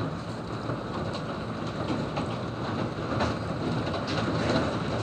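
Hail and rain pelting down, a dense, steady clatter of many small irregular impacts that grows a little louder near the end.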